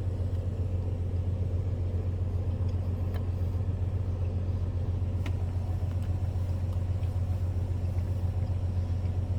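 Steady low hum of a parked truck's idling engine heard from inside the cab, unchanging throughout, with a few faint light clicks.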